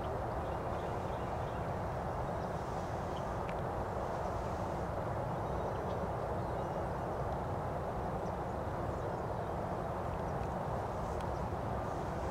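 Steady low background rumble and hiss, with a couple of faint ticks.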